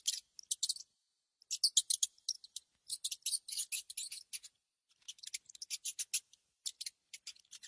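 Rats scrabbling over a plastic bucket trap: clusters of quick, sharp, high-pitched clicks and scratches with short gaps between.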